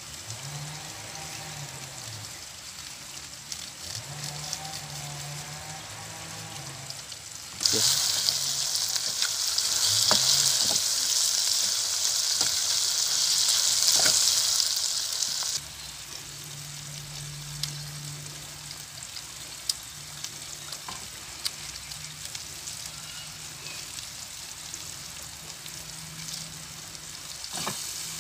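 Chopped red chillies, tomato and bay leaves frying in oil in an aluminium pan on a portable gas stove. A loud sizzle starts suddenly about eight seconds in and drops back after about eight seconds to a quieter frying, with a spoon stirring and clicking against the pan.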